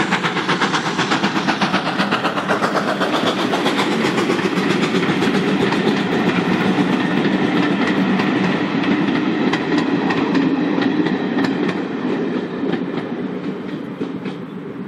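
A GWR 4-6-0 steam locomotive passes with quick exhaust beats, followed by its train of coaches rolling by with a rhythmic clickety-clack of wheels over the rail joints. The sound fades over the last few seconds as the train moves away.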